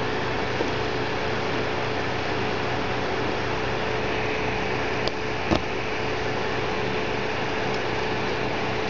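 Steady hiss with a faint steady hum, like a fan or air conditioner running in a small room, and two light clicks about five seconds in.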